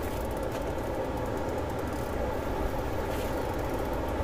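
A steady low rumbling noise that holds at an even level without a break.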